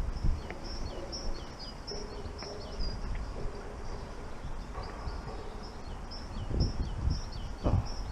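Small birds chirping over and over in short high notes that drop in pitch, over a low outdoor rumble, with a few dull thumps near the end.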